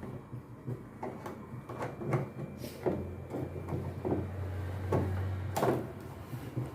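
Short clicks and knocks of hands and tools working a hose clamp loose on a washing machine's tub hose, with a low steady hum for about three seconds in the middle.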